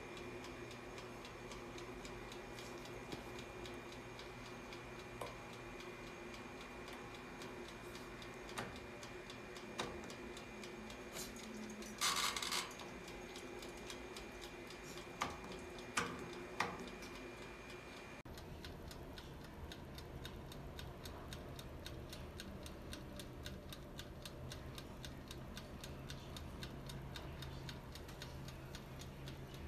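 Electric oven's mechanical timer ticking steadily and quickly as it counts down the cycle, under a faint steady hum. A few louder clicks from the control knobs being handled, and a short hissing burst about twelve seconds in.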